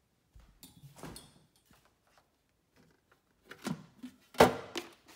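Refrigerator door pulled open with a soft rustle of the seal, then a few plastic clicks and one sharp knock about four seconds in as the clear flip-up lid of the fridge's dairy compartment is swung open.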